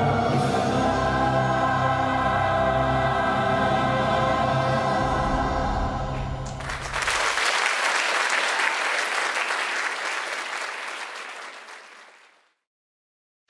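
A choir holds a sustained chord over backing music for about six and a half seconds. Audience applause then breaks out and dies away.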